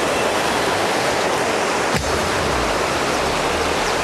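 Steady rush of a fast-flowing river, with a single sharp click about halfway through.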